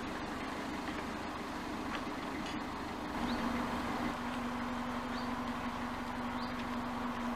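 Narrowboat's diesel engine running steadily, its note dropping slightly and settling about three seconds in.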